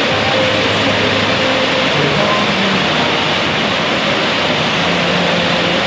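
Background rock song in a passage without singing: held bass and melody notes over a dense, steady wash of sound.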